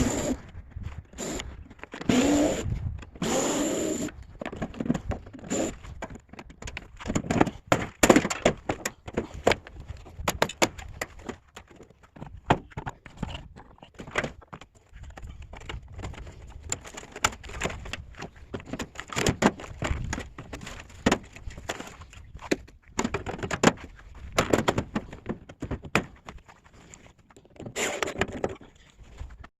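Scrap being handled and loaded: many irregular thunks, knocks and scrapes.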